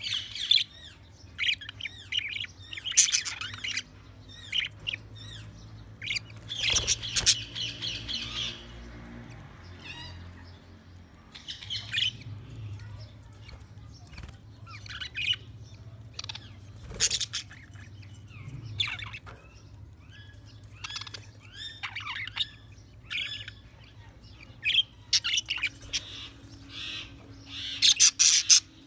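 Budgerigars chirping and warbling in short, irregular bursts of quick rising and falling notes, with a few louder squawks. A faint steady low hum lies underneath.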